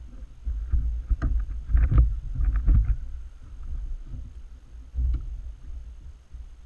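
Splashing and hollow knocks against a plastic sit-on-top fishing kayak as a brown rockfish is hauled aboard, a cluster of them in the first three seconds and one more about five seconds in. A low rumble of wind noise on the microphone runs underneath.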